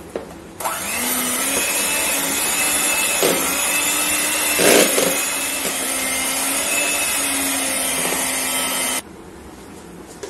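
Electric hand mixer running, its beaters whipping a frozen vanilla ice-cream base in a plastic bowl. It starts about half a second in, has a brief louder clatter about halfway through, and switches off suddenly about nine seconds in.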